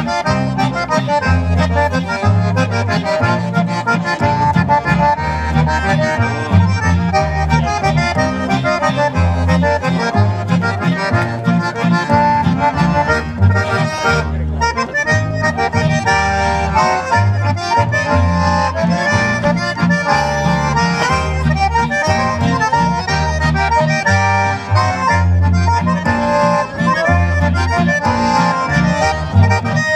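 Live traditional tune played on two accordions with acoustic guitar and upright double bass: the accordions carry the melody and chords over a steady, regular pulse of bass notes.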